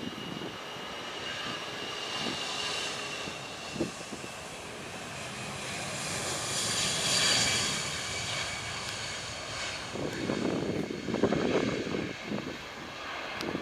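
Citilink Airbus A320-family jet on its takeoff roll, its engines at takeoff power with a high whine, loudest about seven seconds in as it passes. Wind gusts on the microphone near the end.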